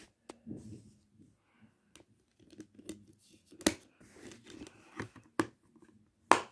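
A plastic Blu-ray case being handled, with rustling and rubbing and several sharp clicks, the loudest near the end.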